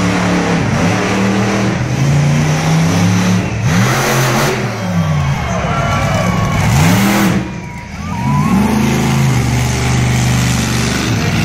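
Monster truck engine revving hard, its pitch rising and falling again and again. Two brief loud rushes of noise come about four and seven seconds in.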